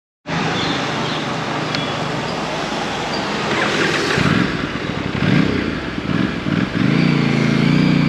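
Aprilia RS 457's 457 cc parallel-twin engine idling steadily, then revved in three short blips while the bike is still stationary. Near the end it pulls away from a standstill under steady throttle.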